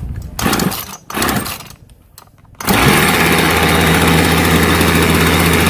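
Kanto 3800 two-stroke chainsaw being pull-started: two pulls of the starter cord, then the engine catches about two and a half seconds in and runs steadily at a raised idle. It starts after the carburettor's fuel needle was opened further and the throttle screw set up to help it start.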